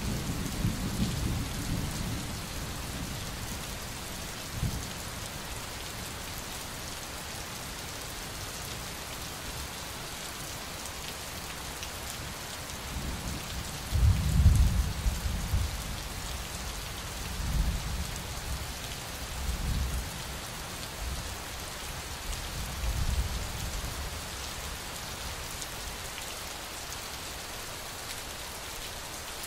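Steady rain with several low rolls of thunder. The loudest roll comes about halfway through, and weaker ones follow a few seconds apart.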